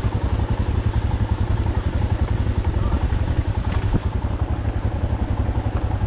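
Motorcycle engine running with a steady, rapid low throb.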